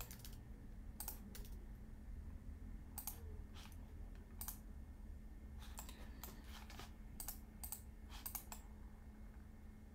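Irregular clicks from a computer keyboard and mouse, about a dozen, some single and some in quick pairs, over a faint steady low hum.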